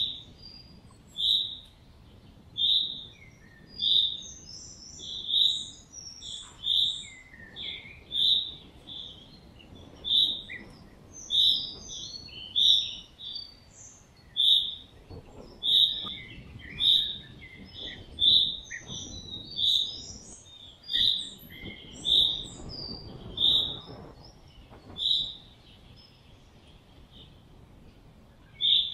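Small birds chirping: a loud, high, short chirp repeats about every second and a half, with many scattered softer chirps around it, over a low rumble of movement.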